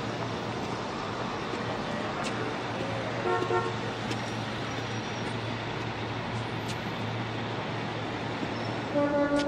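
Street traffic noise with two short car-horn toots, one about three seconds in and one near the end.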